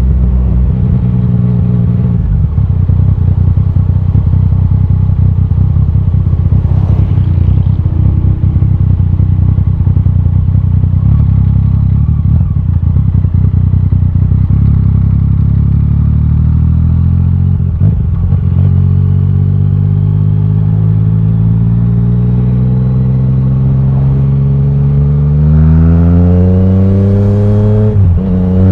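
Yamaha Tracer 900 GT's three-cylinder engine through a titanium Akrapovic exhaust, on the move. It runs steadily with a rough, crackly stretch in the middle. Then it accelerates hard from about three-quarters of the way through, pitch rising, with a brief drop at a gear change near the end.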